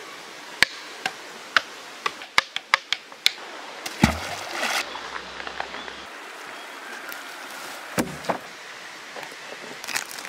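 A wooden stick knocked against tree trunks and logs to sample percussion: a quick, irregular run of sharp wooden knocks in the first three or four seconds, then a few deeper thuds around four and eight seconds in. The steady rush of a creek runs underneath.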